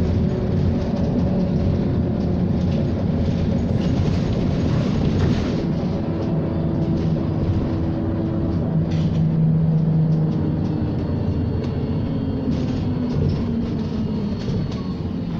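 Interior sound of a SOR EBN 10.5 battery-electric city bus under way: steady road and body noise with an electric motor whine, whose tones slide down in pitch in the second half as the bus slows, and a few light rattles.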